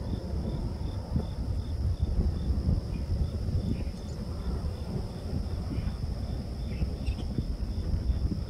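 Outdoor ambience dominated by a steady low rumble, most likely wind on the microphone. Over it runs a faint high steady trill and a soft, evenly repeating chirp about two or three times a second, like insects calling.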